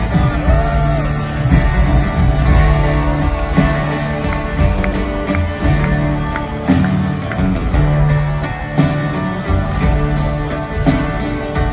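Live acoustic band playing an instrumental passage without vocals: strummed acoustic guitars over upright bass.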